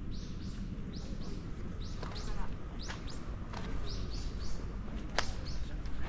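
Small birds chirping, many short high notes in quick succession, over a low steady rumble, with one sharp click about five seconds in.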